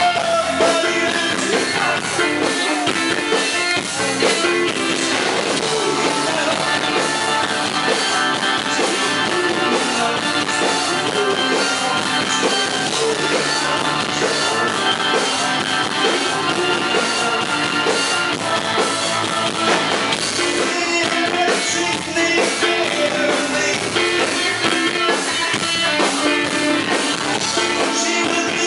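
Rock band playing live: a man singing lead vocals over electric guitars and a drum kit keeping a steady beat.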